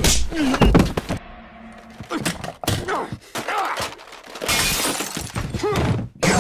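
Cartoon soundtrack: wordless cries and groans from animated characters, then crashing and breaking with glass shattering near the end.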